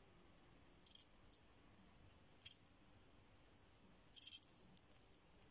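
Small metal jingle bell on a handmade spool ornament giving faint, brief tinkles as it is turned in the hand: a short jingle about a second in, another at two and a half seconds, and a longer cluster around four seconds.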